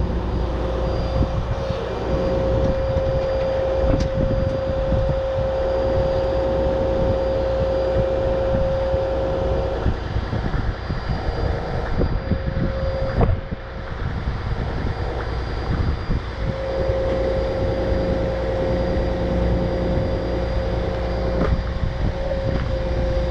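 Heavy machinery's engine running steadily with a deep rumble, under a steady high whine that drops out about ten seconds in and returns about six seconds later, with a few sharp knocks.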